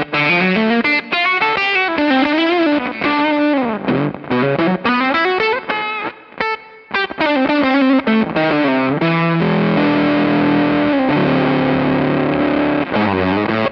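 Electric guitar played through a KingTone MiniFuzz v2 fuzz pedal, its distorted tone heard as a single-note lead line with string bends. From about nine seconds in, it switches to held, sustained chords.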